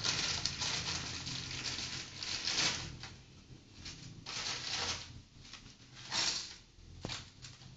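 Plastic packaging crinkling and rustling in uneven bursts as it is handled and torn open over a plate, with one sharp tap near the end.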